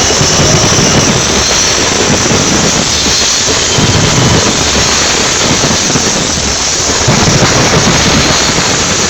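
A dense fireworks barrage: continuous loud crackling and hissing with deep booms going off every few seconds.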